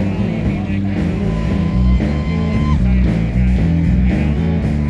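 Rock music with guitar over a bass line that steps quickly from note to note.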